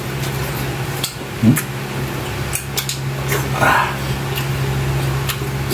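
Eating at a table: scattered light clicks of a spoon and fingers against a tray and plate, over a steady low hum, with a brief murmur a little past halfway.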